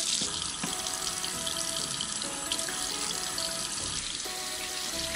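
Kitchen faucet running steadily into a stainless steel sink as hands are rinsed under the stream.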